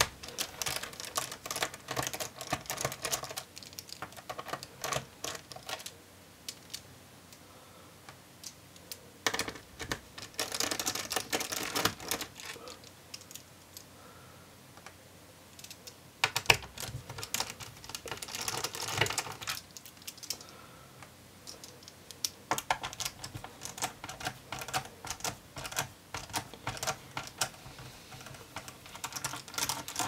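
Small Phillips screwdriver backing screws out of a plastic laptop base: runs of light, rapid clicks and ticks as the driver turns and the screws come loose and are set down on the desk, with quiet pauses between screws.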